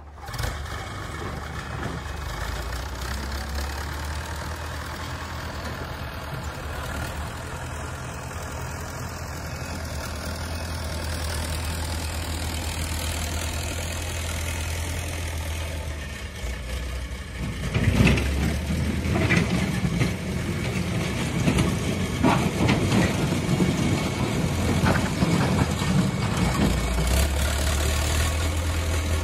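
Backhoe loader's diesel engine running steadily. From about 17 seconds in it gets louder, with a series of sharp clanks and rattles as the front loader bucket works close by at the pile of concrete blocks.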